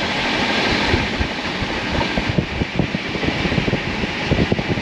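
Express passenger train running, heard at its open door: a steady rush of wind and running noise, with fast irregular clacking and rattling of the wheels on the rails from about a second in.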